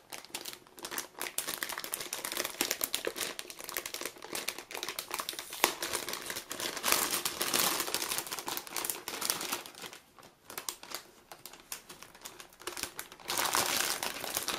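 Anti-static plastic bag crinkling and rustling in irregular bursts as it is opened and the graphics card is pulled out, loudest about seven to nine seconds in and again near the end.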